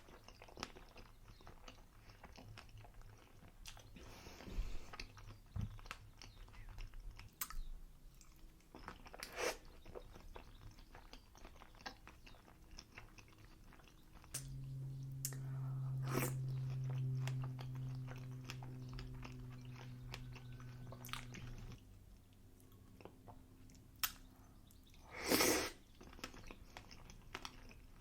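Close-miked chewing of pancakes, with wet mouth clicks and smacks throughout. A steady low hum runs for about seven seconds midway, and a louder bite or smack comes near the end.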